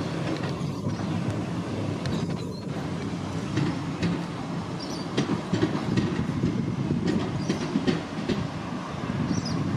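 Electric tram rolling past close by: a steady rumble of steel wheels on rail, with irregular sharp clicks as the wheels cross rail joints.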